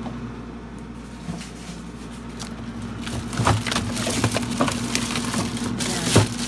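Crinkling and crackling of a plastic bag of frozen golden pompano being pushed and handled, starting about halfway, with sharper cracks about three and a half seconds in and near the end. A steady low hum runs underneath.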